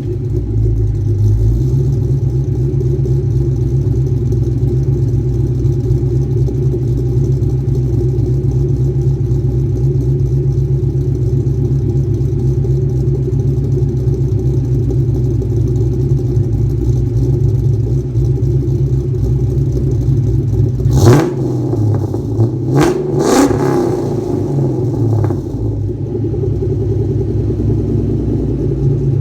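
Cammed 1999 Ford Mustang GT 4.6-litre V8 idling with a choppy rhythm through BBK shorty headers, an X-pipe and Magnaflow mufflers. About three-quarters of the way through it is revved in a few quick throttle blips, then settles back to idle.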